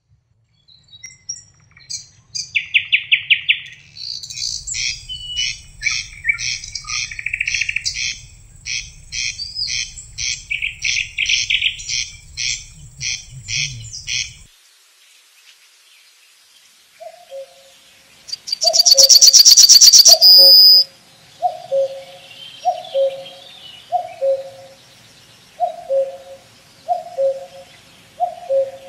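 Songbirds singing in fast, high, repeated phrases over a low hum. After a cut about halfway through, a common cuckoo calls its two-note cuckoo over and over, about once every second and a half. Near its start, a loud, high, rapid trill sounds for about two seconds.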